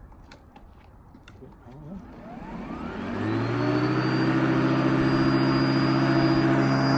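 Ryobi One+ 18V OLM1833H battery lawn mower's electric motor and blade spinning up about two seconds in, rising in pitch over a second or so, then running steadily with a high whine. The slow build-up is this mower's soft start, taking a few seconds to reach speed after the start button and handle are pressed.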